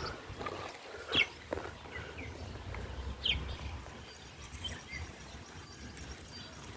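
Backyard chickens foraging in compost: a few short, high chirps that fall in pitch, about two seconds apart, over faint scratching and rustling.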